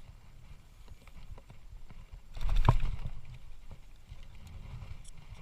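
Scattered light knocks, with one louder low thump and a sharp knock about two and a half seconds in.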